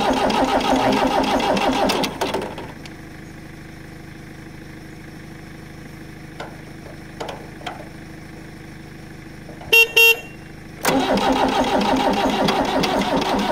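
Old Arnoux tractor's diesel engine cranked over by its starter twice, about two seconds each time, after glow-plug preheating, turning over with an even pulse but not catching. Between the two tries the horn gives two short toots.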